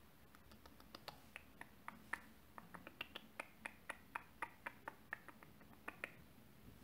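Faint, quick clicks, about four a second, from an eyeshadow brush being patted again and again against the eyelid to pack on eyeshadow.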